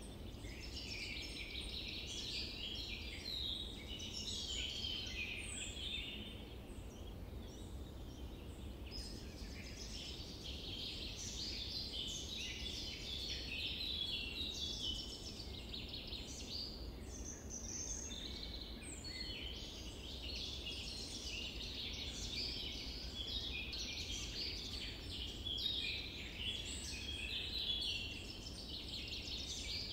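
A dense chorus of many birds chirping and calling at once, carrying on without a break, over a low, even background rumble.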